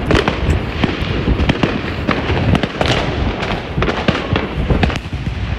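Fireworks going off all around: a dense, unbroken run of bangs and crackles over a constant low rumble.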